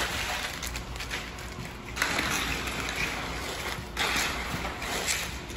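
Come-along concrete rake dragging and pushing wet concrete, a gritty wet scraping in strokes, the two longest starting about two and four seconds in.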